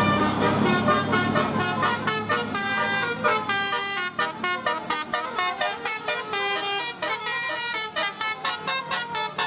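Indonesian bus 'telolet' multi-tone horn playing a fast tune of short notes, several a second, jumping up and down in pitch. A low engine rumble underneath fades out over the first two seconds.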